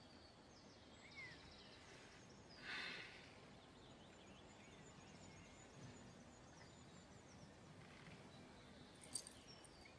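Near silence: faint outdoor ambience with a few faint bird chirps and a brief soft rustle about three seconds in.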